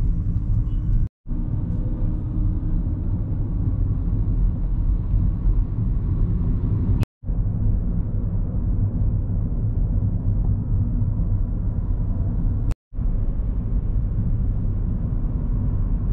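Steady road noise inside a moving car: a continuous low rumble. It drops to dead silence for a moment three times, about a second in, near the middle and about two-thirds through, where the recording is cut.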